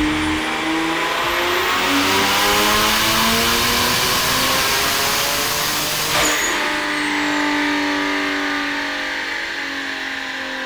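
Kia Stinger 3.3T's twin-turbocharged V6 at full throttle on a big-turbo kit, with a rising turbo whistle. About six seconds in, the throttle snaps shut with a sharp burst and the turbo whine falls away as the engine winds down.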